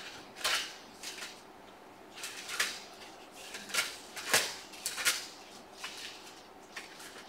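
Thin Bible pages being leafed through at a pulpit: a series of short, irregular paper rustles, roughly a second apart.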